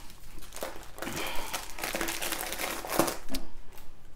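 Clear plastic wrapping around a rolled diamond-painting canvas crinkling and crackling in irregular bursts as it is handled and opened by hand.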